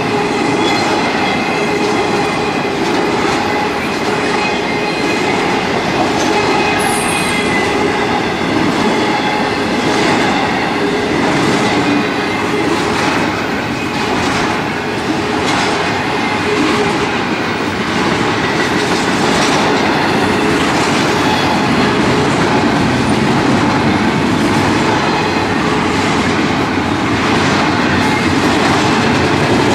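Freight train cars rolling past steadily, their wheels clicking over rail joints with a faint steady squeal of the wheels on the rails.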